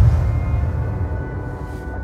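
Dark, ominous film score: a low rumbling drone under a few held tones, slowly fading.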